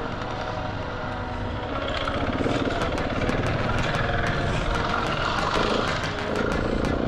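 Husqvarna 701 Enduro's single-cylinder engine running at a steady pace on a dirt track, with tyre noise and light ticking of small stones and gravel from about two seconds in.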